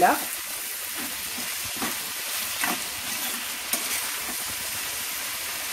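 Sliced onions and chopped tomatoes sizzling as they sauté in hot oil in a frying pan, with a spoon stirring and scraping through them a few times. The sizzle cuts off suddenly at the end.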